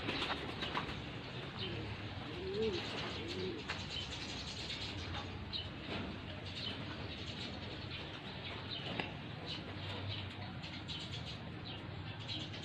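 Racing pigeons cooing, with a low warbling coo that rises and falls about two to three seconds in, amid scattered light clicks.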